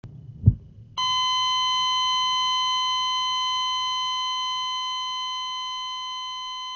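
Heart monitor flatline: a low thud about half a second in, then a continuous high electronic tone starts about a second in and holds, slowly fading. It is the alarm tone of a heart that has stopped.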